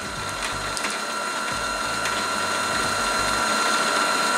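Brother CS-6000i sewing machine motor running with the bobbin winder engaged, spinning the bobbin to wind black thread onto it. It makes a steady whine over a mechanical whirr, growing slightly louder.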